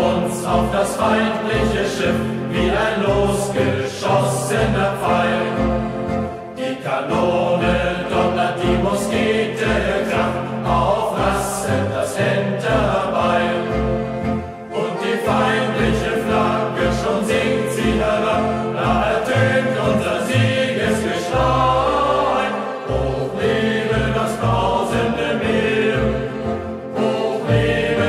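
Youth choir singing a German sea shanty-style song in unison, over instrumental accompaniment with a steady rhythmic bass line.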